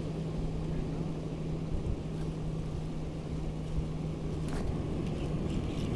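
A steady low motor hum, like a boat engine, that fades about four and a half seconds in, over a low rumble of wind and surf.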